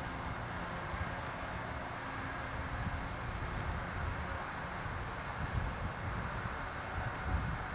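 Wind buffeting the camcorder microphone in an uneven low rumble, with a steady high-pitched buzz running underneath.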